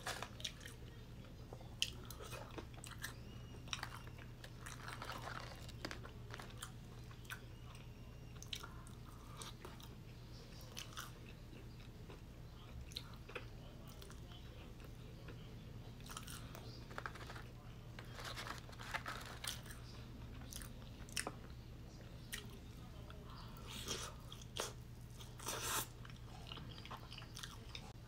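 Close-miked eating of fried chicken and french fries: irregular crunching, chewing and wet mouth clicks, over a faint steady low hum.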